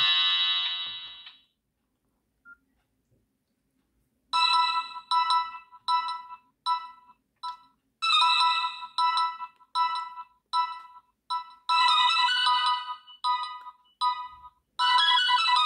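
Nokia 6680 mobile phone ringtones: one tune fades out in the first second or so, and after a pause of about three seconds a new ringtone starts, a melody of short repeated notes with a few longer held ones.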